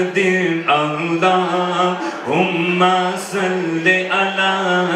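A man singing a devotional Urdu-Punjabi naat through a microphone, in long held notes that glide up into pitch.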